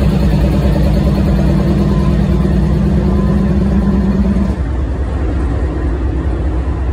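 Freight train's autorack cars rolling past close by: steady, loud rumble of steel wheels on rail. A low hum in the rumble drops away about four and a half seconds in.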